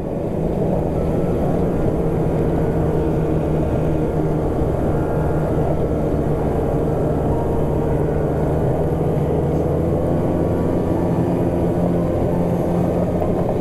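Snowmobile engine running steadily at an even cruising throttle, held back to save fuel, with track and wind noise under it.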